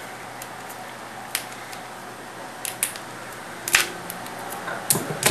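Tight plastic packaging crackling and clicking as it is picked at and punctured with a pen: a handful of sharp, irregular clicks, the loudest about two-thirds of the way through.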